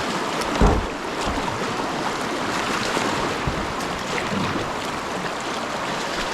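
Whitewater rapids rushing steadily around a kayak, with one dull thump a little over half a second in.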